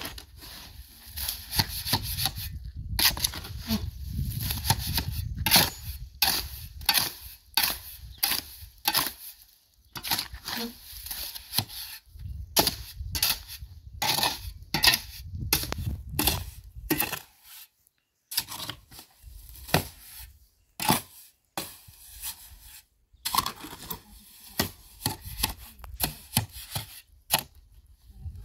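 Steel shovel scooping and turning a sand and cement mix in a metal wheelbarrow: irregular scrapes of the blade through the gritty mix, with sharp knocks of the shovel against the wheelbarrow's steel tray.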